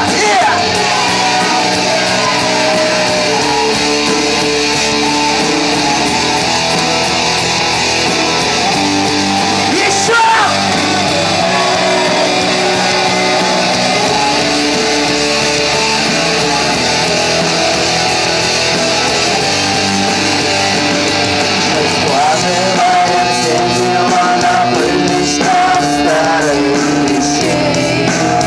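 Live rock band playing a song, guitar-led, with some singing heard over it.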